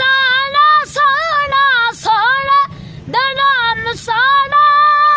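A boy singing a Punjabi naat solo, unaccompanied, in a high voice with long held, ornamented notes and a short breath pause just under three seconds in.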